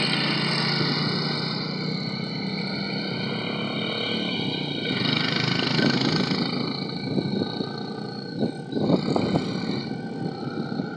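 Steady rushing noise of riding a bicycle along a paved road, with motor traffic (tricycles and a jeepney) passing close by. A few short knocks come about eight to nine seconds in.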